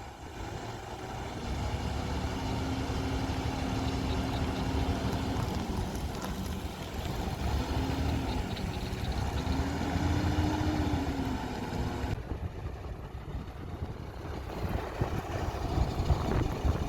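Heavy truck diesel engine running steadily, its pitch rising and falling a few times as it is revved. There is an abrupt change about twelve seconds in.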